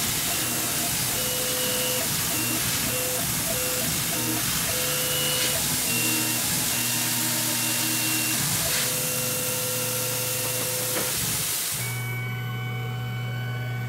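Tormach PCNC 1100 milling an aluminium plate, with a steady spraying hiss from its mist-coolant nozzle, under background music. The hiss stops about twelve seconds in while the music carries on.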